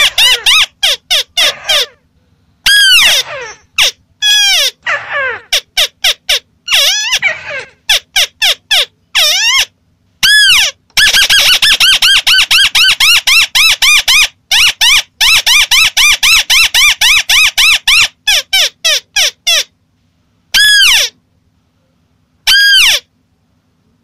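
White-browed crake (tikusan) calls played as a lure recording: loud, rapid series of short arched chattering notes, running together into a fast unbroken stretch in the middle, with a few short pauses near the end.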